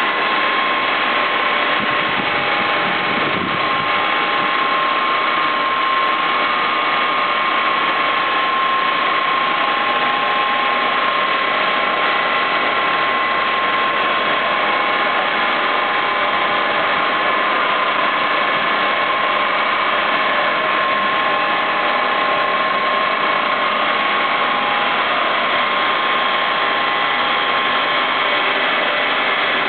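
Steady mechanical noise of running machinery, with a constant high whine and fainter tones that come and go.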